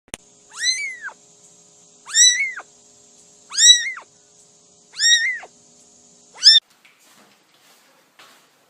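A cat meowing five times, about every second and a half, each call rising and then falling in pitch; the fifth call is short and cut off abruptly.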